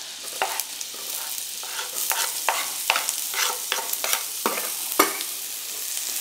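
Diced onions frying in butter in a hot pan, sizzling steadily, while a utensil stirs them and repeatedly scrapes and clicks against the pan, with one sharper knock about five seconds in.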